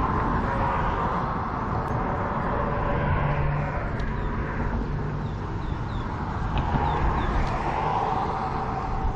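Road traffic going by: a steady hum of vehicles that swells and fades as cars pass.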